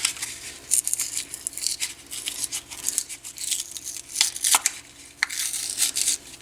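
Small packaging of a replacement turntable stylus being torn and crinkled open by hand, in irregular short rustles and clicks.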